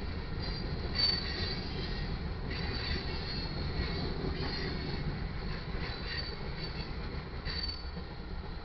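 Freight train cars rolling past: a steady rumble of wheels on rail with intermittent high-pitched wheel squeal, easing near the end as the last car clears the crossing.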